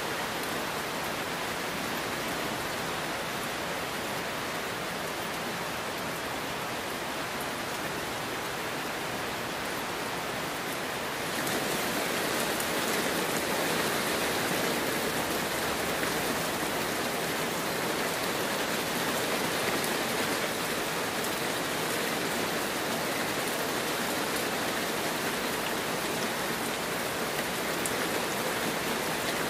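Heavy rain pouring down steadily. About eleven seconds in, the rain abruptly becomes a little louder and brighter, then holds steady.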